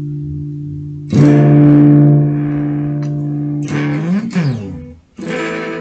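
Electric guitar chords through a Sonicake Fazy Cream fuzz pedal with the fuzz turned down, giving a mild, EQ-like colour. A new chord is struck about a second in and left to ring. Another follows with a bend in pitch, is cut off briefly, and a further chord rings out near the end.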